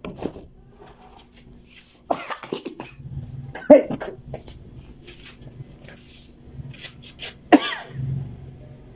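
A man coughing in several sharp fits, the loudest about a third of the way in and another strong one near the end, set off by the pungent dust of freshly ground ginger.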